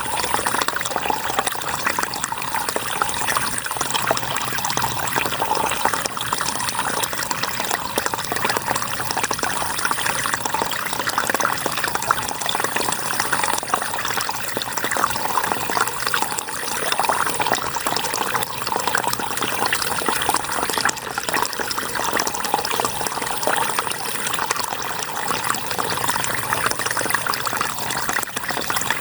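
River water flowing: a steady rush full of constant small trickling splashes.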